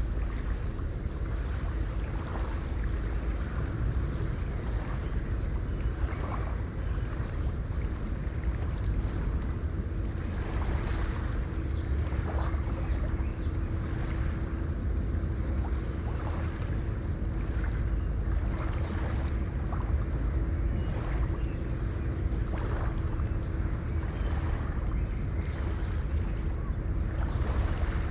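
River water flowing steadily, heavy in the low end with small splashes throughout, and a few faint high bird chirps above it. A faint steady hum sits under the water.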